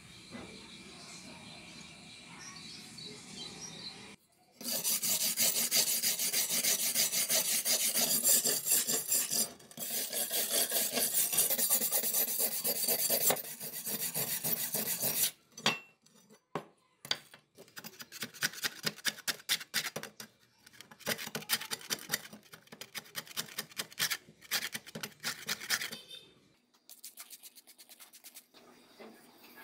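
Hand-held steel wire brush scrubbed back and forth over a rusty steel cleaver blade, scraping off the rust in fast, dense strokes. It starts about four seconds in, runs in long spells with short breaks, and stops a few seconds before the end.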